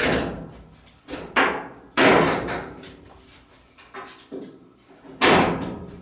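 Sheet-metal cabinet of a clothes dryer being closed up: about seven bangs and clunks, each with a short ring, as the top panel is pushed down into place and the door is worked. The loudest come at the start, about two seconds in, and just after five seconds.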